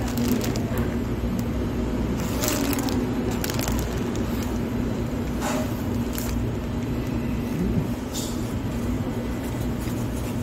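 A person chewing a burger, with a few short crinkles of its paper wrapper, over a steady low background hum.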